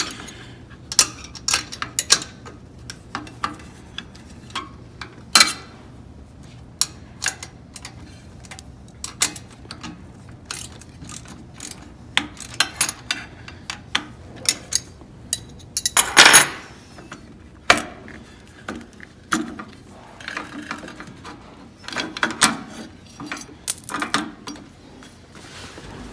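Steel wrenches clicking and clinking against bolts and the aluminium carriage frame of an Innova longarm quilting machine as bolts inside the carriage are loosened. Irregular sharp clicks, with a longer, louder clatter about 16 seconds in.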